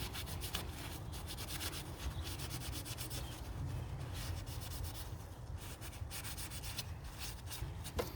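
A part being wiped clean by hand with a rag: a run of quick rubbing strokes.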